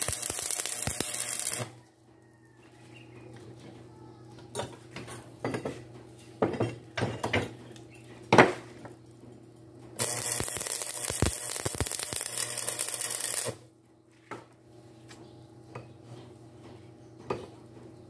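Stick welding arc crackling and hissing as steel bar is tacked, for the first second and a half or so and again for about three and a half seconds from about ten seconds in. Between the two welds come scattered metallic clinks and knocks, the sharpest about eight seconds in.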